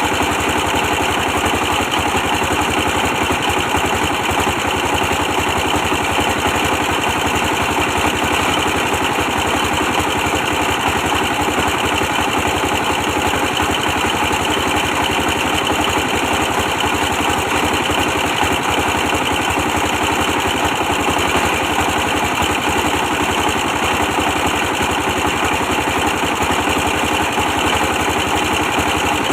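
24 hp diesel engine running steadily at a constant speed, driving a brick press, with a fast even firing beat.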